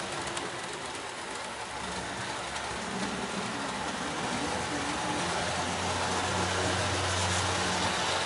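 Electric model train running on the layout, a steady hum and rattle of its motor and wheels on the track, growing louder about five seconds in as it comes closer.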